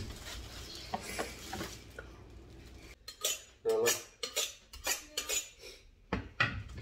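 Steel kitchen knife blades clinking and scraping against each other in a run of quick strokes, beginning about three seconds in, after faint handling noise.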